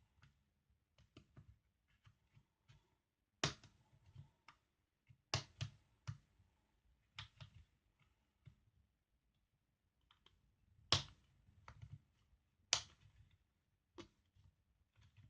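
Snap-on plastic screen bezel of a Dell Latitude 5480 laptop being pried off with a plastic tool: a scattered series of sharp clicks and snaps as its clips let go, with fainter ticks between.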